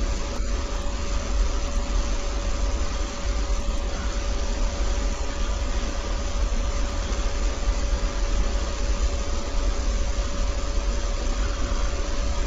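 Steady low rumbling drone with a constant hum riding on it, unchanging; a faint click or two right at the start.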